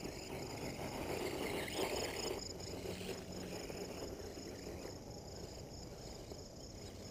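Insects chirping in a steady, evenly pulsed high trill from the grass, over a low rushing noise that swells about two seconds in.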